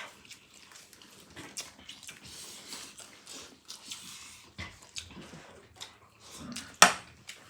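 Several people eating fried rice: quiet chewing and small clicks of food being picked up and eaten, with one sharp louder click near the end.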